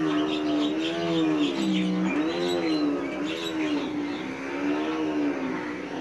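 A steady engine drone whose pitch wavers slowly up and down, over faint chirps of small birds.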